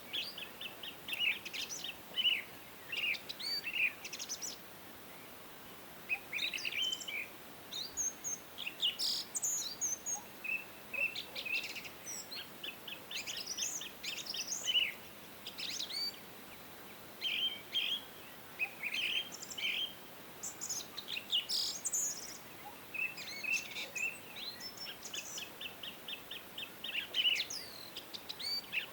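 Several songbirds chirping and calling throughout, with short sweeping notes and rapid trills of repeated notes, over a faint steady background hiss.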